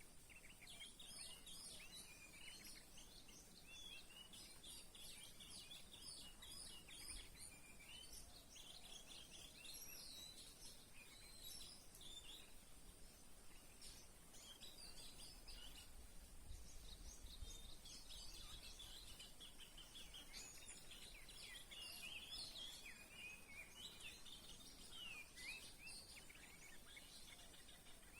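Faint songbirds chirping and whistling in quick, varied phrases throughout, over a steady high-pitched hiss.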